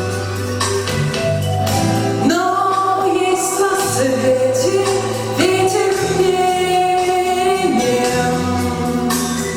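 Music: a song with long held sung notes over instrumental accompaniment.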